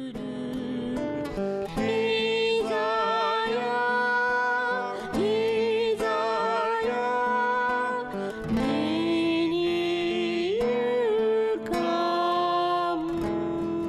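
A man singing a slow song, accompanied by a strummed acoustic guitar.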